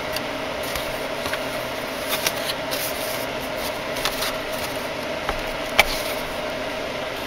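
Swiss Army knife blade cutting and scraping through cardboard packaging: scattered faint scratches and small clicks, one sharper click near the end, over a steady background hum.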